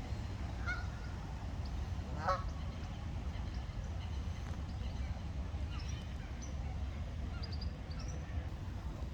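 Wild ducks calling in a few short, scattered calls, the loudest about two seconds in, over a steady low rumble.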